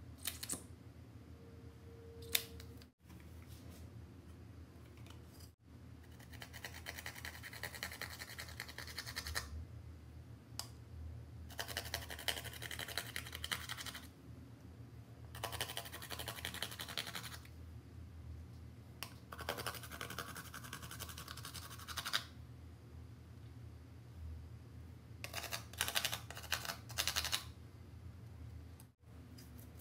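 A metal tool scraping pressed eyeshadow out of a palette's pans, heard as repeated bursts of dry scratching a couple of seconds long. There are a couple of sharp clicks in the first few seconds.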